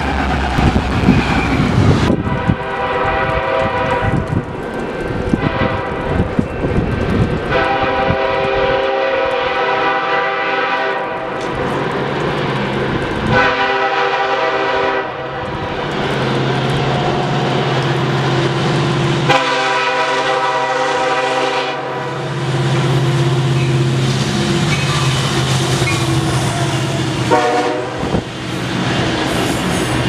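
Nathan K5LLA five-chime air horn on diesel freight locomotives, sounding a series of long and short blasts as the trains approach and pass. Between the blasts a passing train's wheels rumble on the rails and a locomotive engine hums steadily.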